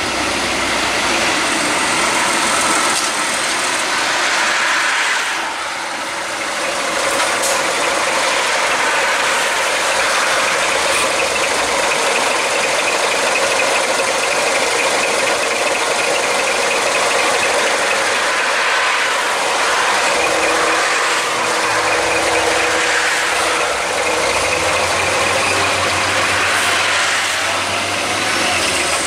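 Heavy truck engine running with steady mechanical noise. A deeper engine note comes in about two-thirds of the way through.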